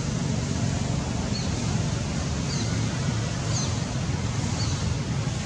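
Steady rumbling outdoor background noise, with four faint short high chirps about once a second.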